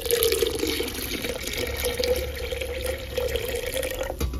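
Chicken broth poured from a pot into a glass blender jar: a steady splashing pour with a steady ringing note from the jar, thinning to a trickle and stopping near the end.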